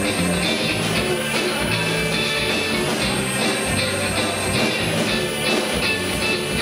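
Live rock band playing an instrumental passage of a Greek laïko song: electric guitar, electric bass and a drum kit with a steady cymbal beat.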